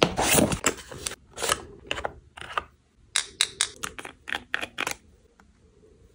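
Hands handling cosmetic packaging: a short rustle and a few taps on the cardboard calendar box, then a quick run of sharp clicks and scrapes as the eye cream jar's screw lid is twisted off. The clicking stops about five seconds in.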